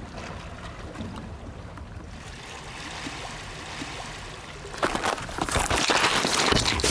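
Sea water washing and splashing against shoreline rocks, with wind on the microphone; about five seconds in it becomes suddenly much louder, with a lot of close splashing and small clicks.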